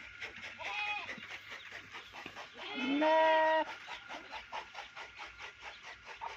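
Goat bleating: a short call about a second in, then a longer, louder bleat near the middle that rises slightly in pitch and then holds.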